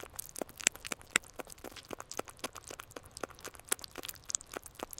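Prairie dog cracking sunflower seed shells with its teeth: a quick, irregular run of small crunchy clicks, several a second.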